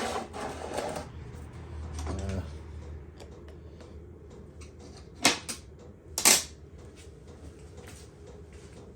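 Metal tools and parts handled on a workbench: a rustling shuffle in the first second or two, then two sharp clinks about five and six seconds in, the second the loudest.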